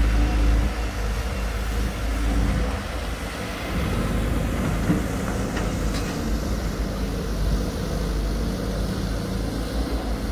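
Diesel engine of a Volvo EC210DL crawler excavator running under load while it digs, its note shifting as the work changes, over a deep, steady low rumble.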